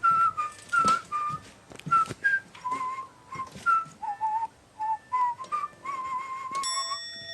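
A whistled tune of short notes, some wavering in pitch, with sharp clicks and knocks between them.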